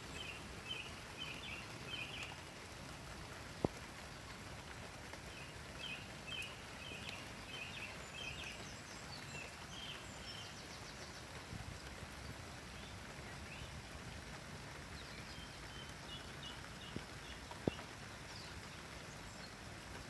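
A songbird that the uploader takes for a nightingale sings several short phrases of high chirping notes. Under it is a steady hiss of light rain, with two sharp single drip clicks.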